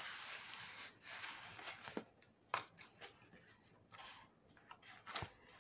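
Faint rustling and scraping of corrugated cardboard packaging being pulled off a crystal curtain rod finial, with a few short crackles.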